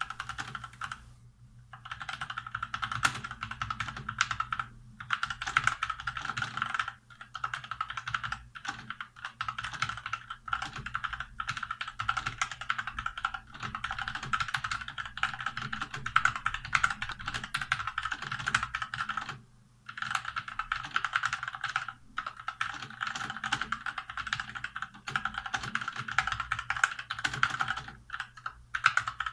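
Fast typing on a Motospeed Inflictor CK104 mechanical keyboard with Outemu red linear switches: dense runs of key presses broken by short pauses.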